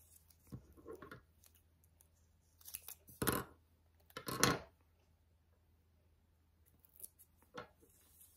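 Scissors snipping paper: a few short, separate cuts, the two loudest just past the middle.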